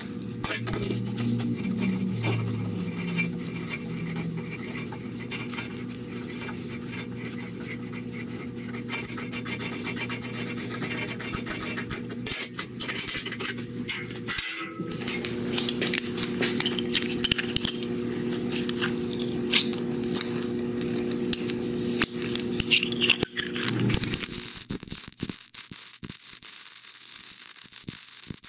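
Drill press motor humming, with metal scraping and clinking as a small steel part is drilled and handled in the drill press vise. About 24 s in the hum stops and a MIG welder's arc crackles and hisses.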